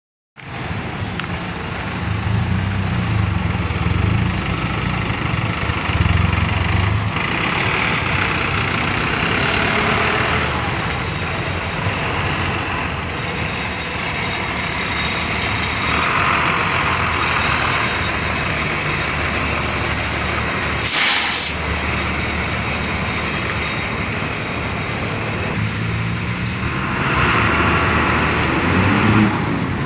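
City buses' diesel engines running and idling close by, with passing traffic. About two-thirds of the way through, an air brake lets out one short, loud hiss.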